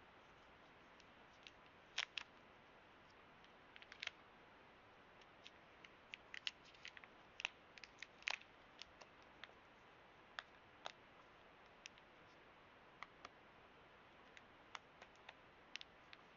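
Light, sharp clicks and taps of small items being handled, coming irregularly with some in quick pairs, over a faint steady hiss.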